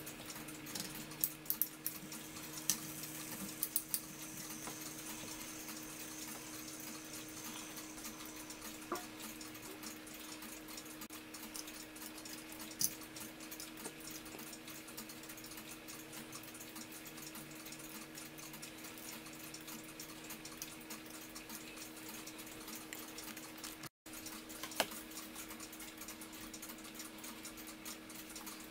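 Scattered small metallic clicks and taps of brass clock-movement parts being handled and fitted, a quick cluster of them in the first few seconds, over a steady low hum.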